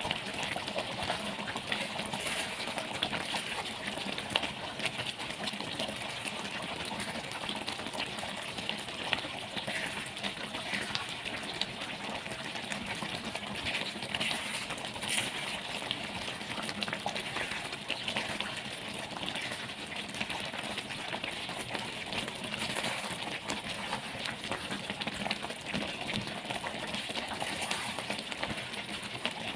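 Thick curry simmering in a stainless steel pan while a slotted spoon stirs it, with many small clicks and scrapes of the spoon against the pan.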